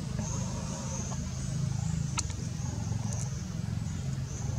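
Outdoor background noise: a steady low rumble, with a faint high-pitched buzz that fades in and out and a few faint ticks.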